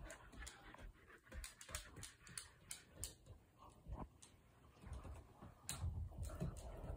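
Faint, irregular clicking of a dog's claws on a hardwood floor, with a few soft low thumps near the end.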